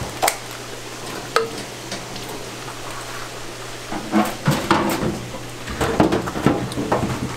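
Hard crab shells and legs knocking and clattering against a stainless-steel sink as the crabs are handled. There are a few sharp clicks at first, then a busier run of clatter over the last few seconds.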